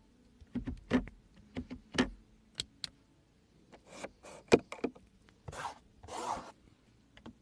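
A string of sharp clicks and knocks, then two short rubbing swishes about two-thirds of the way in: handling noises.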